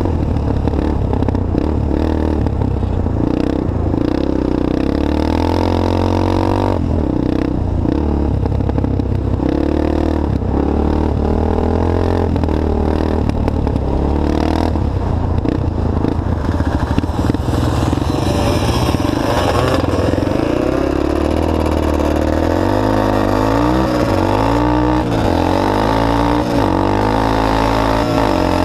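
Off-road vehicle's engine heard onboard at full speed on packed snow, revving up and down as the throttle opens and closes through corners, with wind and tyre noise under it. The rises and falls in pitch come quicker and deeper in the second half.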